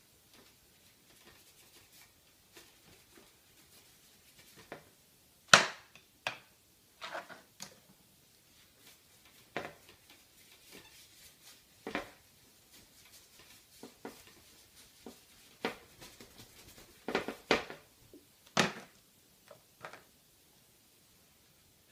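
Scattered light knocks and taps from painting with a brush at an easel, with faint brushing between them; the loudest tap comes about five and a half seconds in, and a few more cluster near the end.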